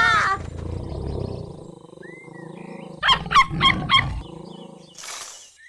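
A cartoon tiger's roar dies away into a low growl. About three seconds in, a puppy gives four quick, high yaps, the loudest sounds here. A short rushing hiss follows near the end.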